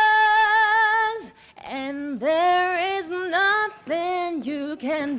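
A woman singing solo and unaccompanied. She holds a long note for about a second, lets it fall away, and after a short breath sings on in phrases that swoop up and down in pitch.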